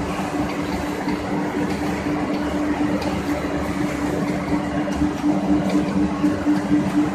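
Pet food production line machinery running steadily: a constant electric-motor hum over an even mechanical rush from the kibble conveyor.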